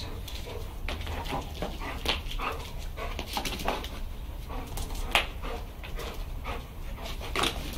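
Two pit bull–cross dogs barking, yipping and whimpering excitedly while they play at chasing. The calls are short and irregular, with a louder one about five seconds in.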